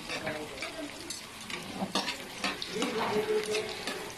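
Chopped onion, garlic and ginger sizzling lightly in oil in a metal wok, while a slotted metal spatula stirs them, scraping and clicking against the pan again and again.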